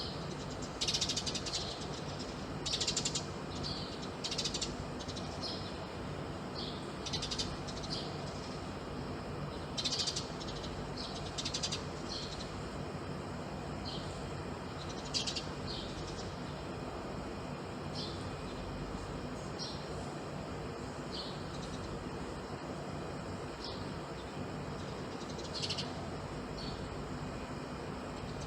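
Birds chirping outside a window: short, high calls at irregular intervals, more frequent in the first half, over a steady low background hum.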